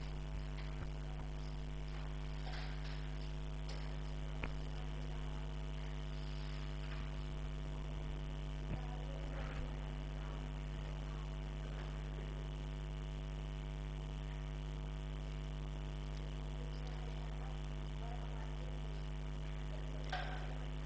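Steady electrical mains hum with a stack of overtones, with two faint clicks.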